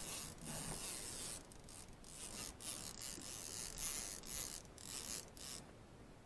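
Fishing reel being cranked to bring in a hooked fish: a rasping mechanical whir that comes in stretches with brief breaks.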